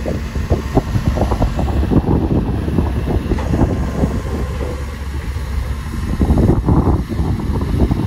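Heavy construction machine's diesel engine running, with wind buffeting the microphone, swelling briefly about six seconds in.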